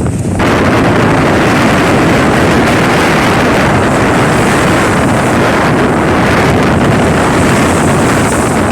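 Wind buffeting the microphone, a loud steady rushing that jumps up sharply about half a second in.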